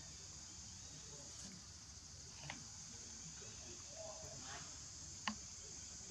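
Faint steady high-pitched insect drone, with two soft clicks about two and a half and five seconds in.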